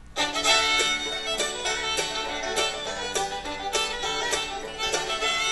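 Instrumental music track from an online audio library, played as a preview, starting abruptly about a quarter second in: an upbeat tune on string instruments with evenly spaced plucked notes.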